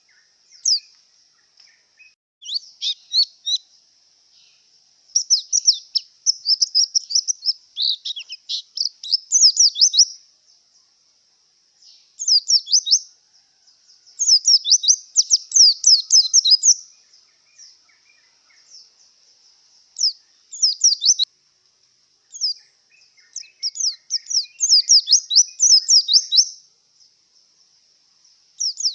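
White-eye (pleci) in breeding condition, singing in phrases of rapid, high twittering chirps. Each phrase lasts one to several seconds, with short pauses between.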